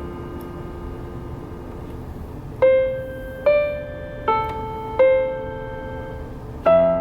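Piano playing a slow tune: a chord left ringing and fading, then four single notes about a second apart, then a fresh chord struck near the end.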